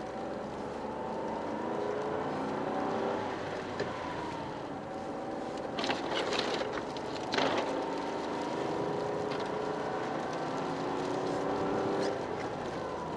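Toyota GR Yaris's turbocharged three-cylinder engine running under way, its pitch rising, dropping back as it shifts, climbing again and holding, then easing off near the end. Two brief bursts of hiss break in about six and seven and a half seconds in.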